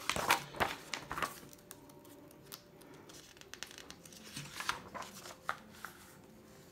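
Pages of a hardcover picture book turned by hand: paper rustling with soft flaps and clicks, in the first second or so and again about four and a half seconds in.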